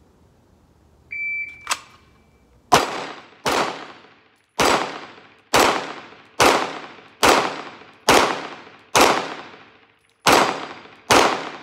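A shot timer beeps about a second in, followed by a sharp click. Then a Glock 45 MOS 9mm pistol fires ten shots at an even pace, a little under a second apart, each trailing off in a short echo.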